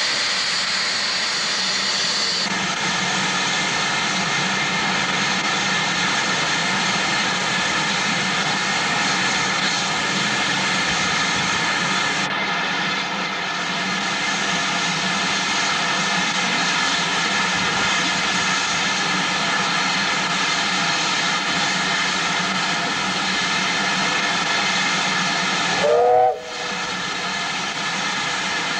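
BR Standard Class 5 steam locomotive No. 73096 standing with steam hissing steadily from it. Near the end comes a brief loud chirp that rises in pitch, cut off by a sudden break in the sound.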